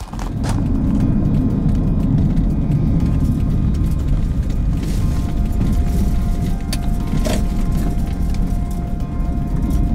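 Steady low road rumble of a moving car, heard from inside the cabin, with background music over it.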